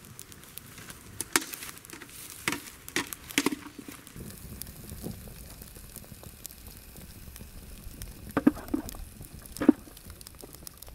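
Wood fire crackling in a mop-bucket stove, with scattered sharp pops and clicks, a cluster in the first few seconds and a few more near the end.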